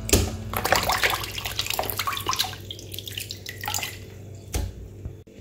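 Hands swishing and squeezing pieces of goat meat in a plastic basin of water, with splashing and sloshing. The splashes come quick and close together for the first two or three seconds, then thin out to a few single splashes.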